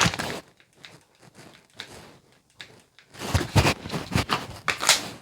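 Dry-fire handling sounds of a Glock 45 pistol: a knock as it is drawn from the holster, a few light clicks from dry trigger presses, then a run of louder knocks and rustles about three seconds in as the gun and gear are handled.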